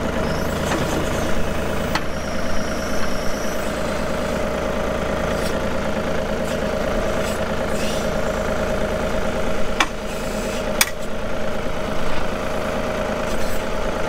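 John Deere compact tractor's diesel engine idling steadily, with two sharp clicks about a second apart late on.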